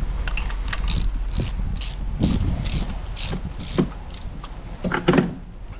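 Ratchet wrench clicking in short repeated strokes, roughly two a second, turning a spark plug in the engine of a 2019 Hyundai Elantra during a plug change for a misfire. A louder knock comes about five seconds in.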